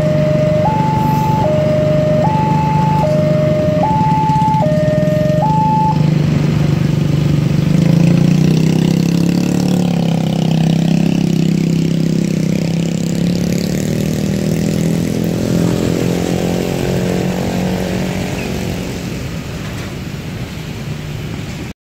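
Level-crossing alarm sounding a two-tone signal, alternating high and low with each tone held just under a second, over the steady rumble of a passenger train rolling past on the rails. The alarm stops about six seconds in; the rumble carries on, slowly fades, and cuts off abruptly near the end.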